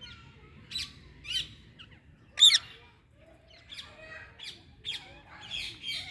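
Pet parrot squawking: a few harsh separate calls, the loudest about two and a half seconds in, then a run of quicker calls toward the end.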